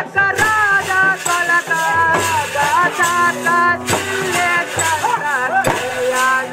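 Live Indian folk music: a melody line of held, gliding notes over regular drum beats and a shaken rattle.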